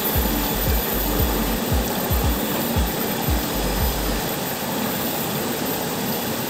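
Steady rush of flowing river water, with low rumbling thumps of wind or handling on the microphone through the first four seconds.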